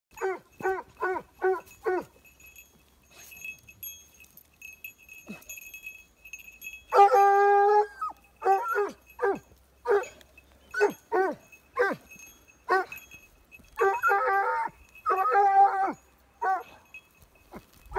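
Hunting dog giving tongue while trailing a scent: runs of short, quick yelping barks, about four a second, broken by a drawn-out howl about seven seconds in and another near fifteen seconds.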